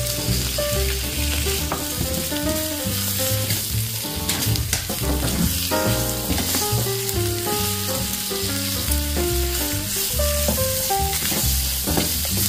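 Sliced calabresa sausage sizzling as it fries in a nonstick pan, with a spatula stirring the slices around. Background music with a melody and a steady bass line plays over it.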